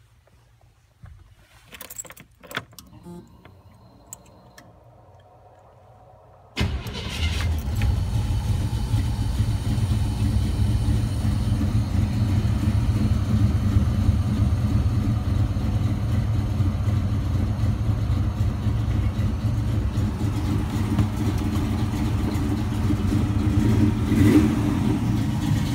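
Chevy 4x4 van's engine on a cold start: a few clicks and rattles, then the engine fires suddenly about six and a half seconds in and runs steadily, with a brief louder moment near the end.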